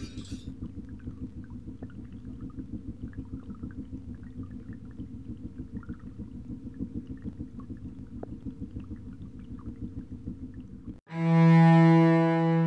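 Low, steady rumble of a river boat's engine, throbbing several times a second. About eleven seconds in it cuts off abruptly, and a loud, sustained horn-like note rich in overtones takes over.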